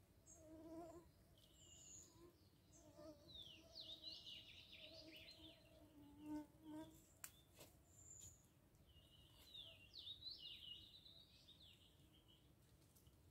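Faint songbird chirps and falling whistled phrases, coming in two spells, over an insect buzzing on and off. There are a couple of sharp clicks about seven seconds in.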